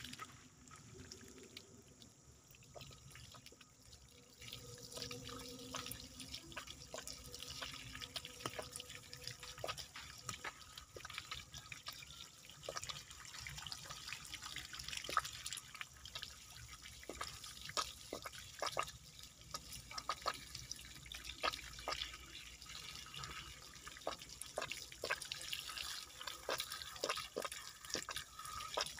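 Water from a garden hose splashing and dripping onto a bonsai's rock and roots as they are washed by hand, with many small splashes. Faint at first, becoming steadier about four seconds in.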